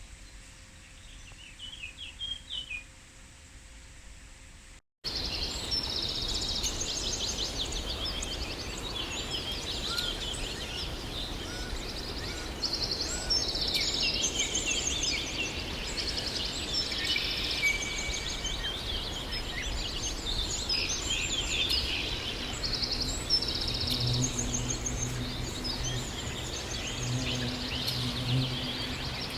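Many small birds chirping and trilling in short high phrases over a steady outdoor background hiss, with a few faint chirps before a sudden jump in level about five seconds in. A low steady hum joins for a few seconds near the end.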